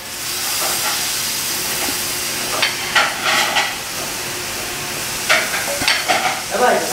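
Marinated mutton and its masala gravy sizzling loudly as it is poured into a hot pan of oil, fried onions and curry leaves, a steady frying hiss that starts at once. A metal ladle clinks against the pan a few times.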